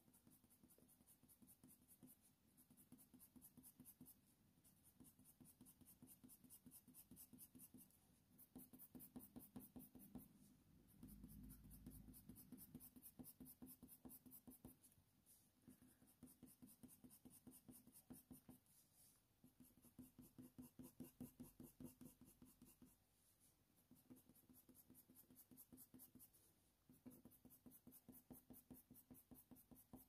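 Faint scratching of a Faber-Castell Polychromos coloured pencil on smooth hot-press watercolour paper: rapid short shading strokes, several a second, in runs of a few seconds broken by brief pauses.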